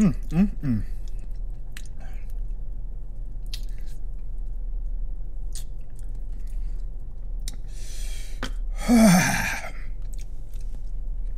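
A man chewing a chicken wing with small wet mouth clicks and smacks. In the first second he gives a couple of short falling hums. About eight seconds in he draws a sharp breath, then blows out a loud breathy groan against the burn of Carolina Reaper hot sauce.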